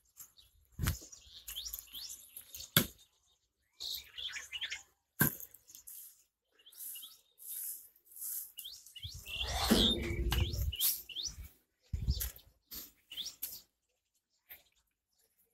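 Small birds chirping in short rising chirps, on and off, with scattered sharp clicks. About nine seconds in comes a louder rustling rumble lasting about two seconds.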